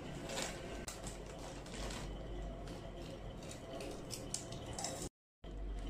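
Crinkling and crackling of a potato-chip bag as it is handled and a hand reaches in for a chip: scattered sharp crackles over a low steady hum, cutting out briefly just after five seconds.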